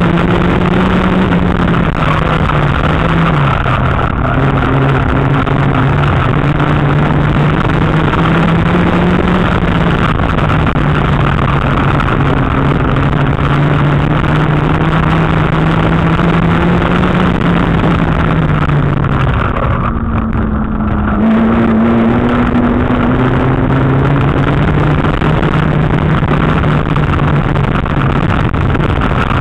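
Old street banger's engine running hard under load, heard from inside the car, its pitch stepping up and down as the driver accelerates and lifts. About two-thirds through it briefly drops away, then climbs again.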